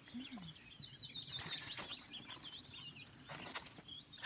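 Small woodland songbirds singing, many quick high chirps and slurred notes overlapping, with a couple of brief rustles about a second and a half and three and a half seconds in.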